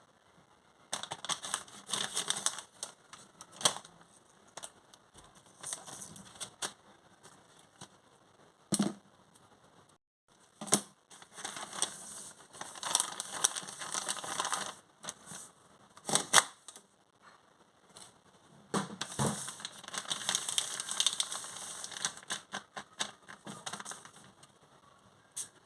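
Packaging being handled and opened: crinkling and rustling in irregular bursts, with sharp clicks and taps between them.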